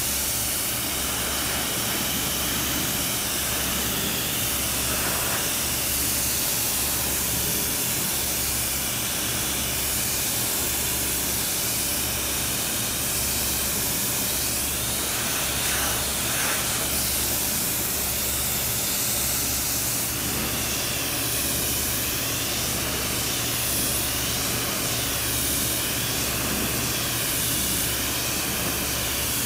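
Kärcher K3 Silent pressure washer jet hissing steadily as it sprays the excavator's painted steel bodywork, the spray sound shifting as the jet sweeps across the panel. A low steady hum runs underneath.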